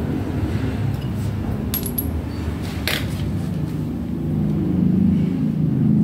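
Small metal parts of a disassembled water pump clinking and tapping as they are handled: a few light metallic clicks, one with a brief high ring about two seconds in and a sharper click about three seconds in. A steady low rumble runs underneath.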